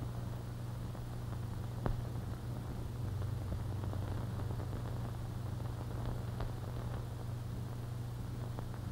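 Background noise of an old optical film soundtrack: a steady low hum under a faint hiss, with a few sharp clicks and crackles from the worn print, the clearest about two seconds in, around six and a half seconds in, and near the end.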